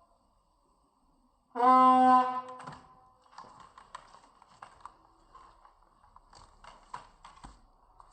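Air horn blasting once about a second and a half in: a loud, single-pitched honk of about a second. Faint scattered knocks and clicks follow.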